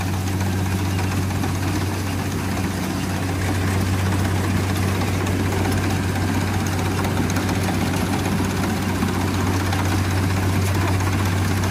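An engine running steadily at idle: a constant low hum that does not change in pitch.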